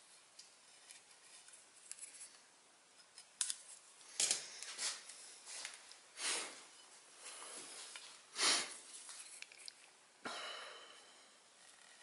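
A hobby knife cutting through packing tape and paper wrapped around a steel bar: a few faint ticks, then a series of short scraping cuts a second or two apart from about four seconds in.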